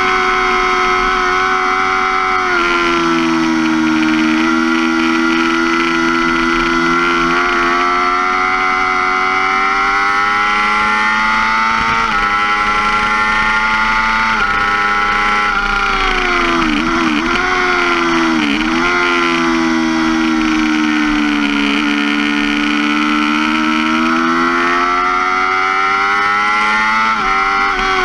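2005 Yamaha R6's inline-four engine at high revs under hard acceleration, over wind rush. It shifts up about two and a half seconds in, then pulls a long time in one gear with the pitch climbing slowly. A few brief dips in pitch come around the middle, and a sharp drop comes near the end as the rider shuts off for braking.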